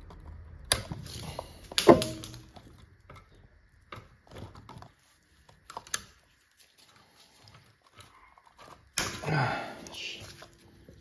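Metal clacks and knocks of locking pliers clamped onto a heat-loosened, broken exhaust stud on a turbo manifold as it is worked loose. The two loudest knocks come in the first two seconds, with scattered lighter ticks after and a rougher scraping, handling stretch near the end.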